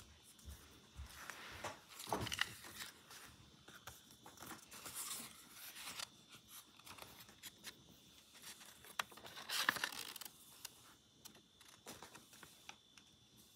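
Paper cut-outs rustling and crinkling as they are handled, in irregular bursts, with louder rustles about two, five and ten seconds in, the last being the loudest.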